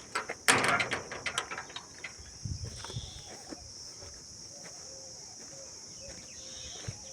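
Steady, high-pitched chirring of insects such as crickets, with a few sharp knocks and clatters in the first second and a half, the loudest about half a second in.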